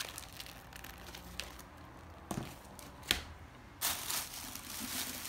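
A few light knocks, then a thin plastic shopping bag rustling and crinkling as a hand rummages through it, starting about two-thirds of the way in.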